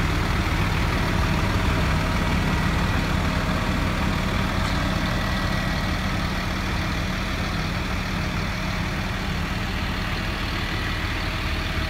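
A large engine idling steadily with a low, even hum.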